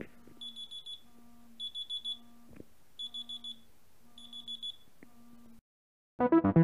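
Smartphone alarm clock going off: bursts of four or five quick high beeps, repeating about once a second, which stop suddenly about five and a half seconds in. Electronic music starts just before the end.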